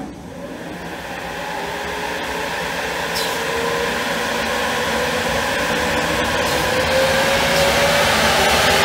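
České dráhy class 371 electric locomotive pulling away slowly, its electrical whine rising steadily in pitch and growing louder as it gathers speed.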